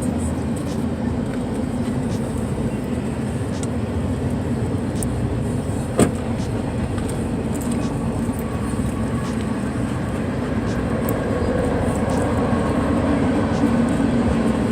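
A big train passing, a steady rumbling run with one sharp click about six seconds in.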